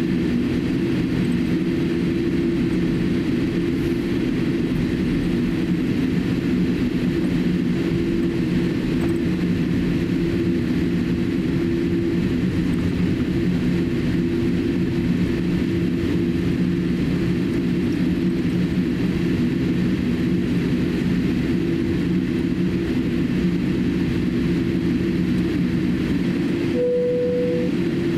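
Boeing 787-8 cabin noise during taxi: the steady hum of the GEnx-1B turbofans at low taxi thrust, with low droning tones throughout. A short higher tone sounds near the end.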